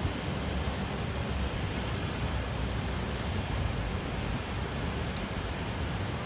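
Steady heavy rain hissing, with a few sharp taps of raindrops striking a ledge close by.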